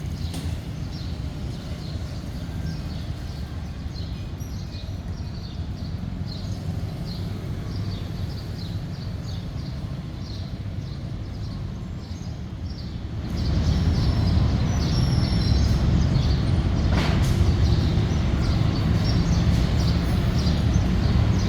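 Outdoor ambience: a steady low rumble with small birds chirping in short, rapid high notes throughout. The rumble grows louder about 13 seconds in.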